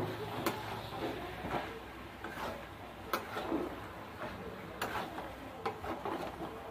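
Metal spatula stirring a thick chicken and potato curry in a metal kadhai, scraping and knocking against the pan's side with a few sharp clinks scattered through.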